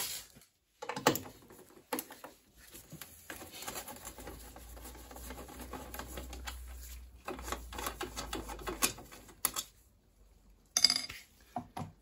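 A screwdriver turning a screw in a motorcycle's body panel, with scraping and small metallic clicks and clinks, then a sharp clatter near the end.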